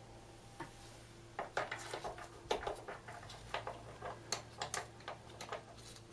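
Metal gearbox parts clinking and clicking as gears and a selector fork are fitted onto the layshaft inside a Triumph Bonneville five-speed gearbox casing. A run of sharp metal clicks starts about a second in and lasts until near the end.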